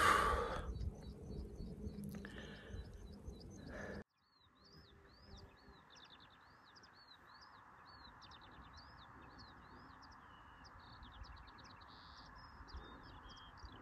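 A small songbird singing a continuous run of high chirps and quick trills. A low rumble lies under it for the first four seconds and cuts off suddenly; the song then goes on alone and clearer.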